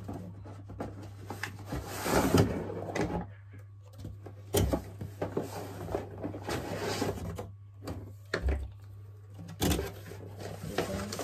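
Cardboard shipping box being pulled open by hand: irregular scraping, rubbing and knocks of the cardboard flaps, loudest about two seconds in, with sharper knocks near the middle and near the end.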